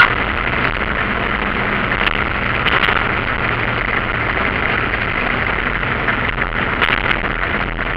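Single-engine light aircraft's piston engine idling, heard inside the cockpit as the plane rolls along the runway. The engine and cabin noise hold steady, with a sharp click right at the start and a few brief knocks.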